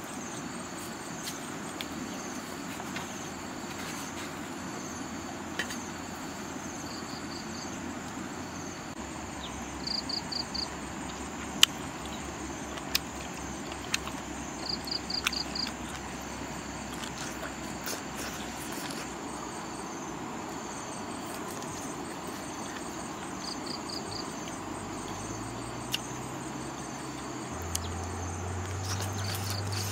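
Steady high-pitched insect drone, with short chirping trills of four or five quick pulses every few seconds. Scattered sharp clicks, the loudest about twelve seconds in.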